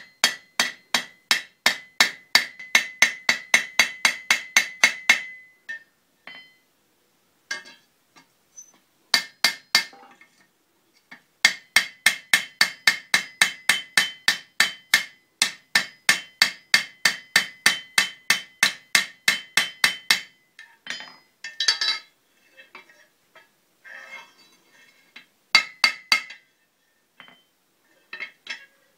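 Blacksmith's hand hammer striking metal on an anvil in fast runs of about five blows a second, the anvil ringing with each blow. The runs are broken by pauses of a few seconds, about five seconds in and again about twenty seconds in.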